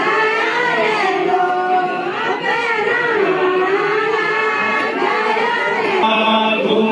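A group of men singing a jhoda-chanchari, a Kumaoni folk circle song, together.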